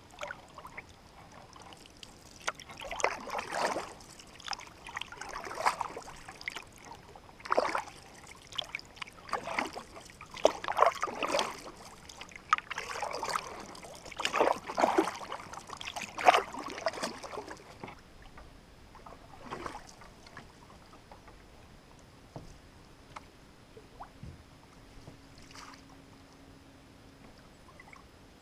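Canoe paddle strokes in calm water, a splash and swirl about every two seconds. The strokes stop about two-thirds of the way through, leaving only a few faint water sounds.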